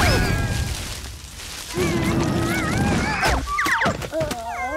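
Cartoon sound effects: a loud crash right at the start, then squeaky, warbling cartoon-ant vocal sounds and sliding, whistle-like tones.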